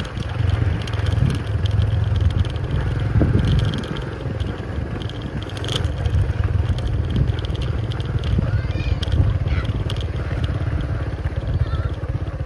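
Small motorcycle engine running steadily at low speed: a continuous low rumble while it moves along a dirt track.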